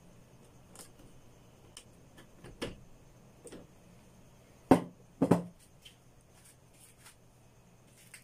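Light clicks and taps of pliers and wires being handled in a plastic junction box, with two louder knocks close together about five seconds in, over a faint steady hum.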